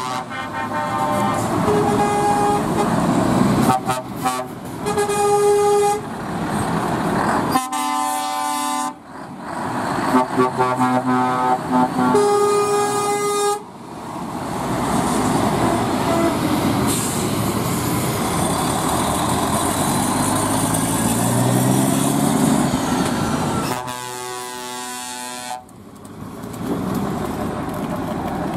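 Scania trucks' air horns tooting in a string of long, chord-like blasts through the first half, then heavy truck engines on open exhaust pipes pulling away, their pitch rising as they accelerate. One more horn blast comes near the end.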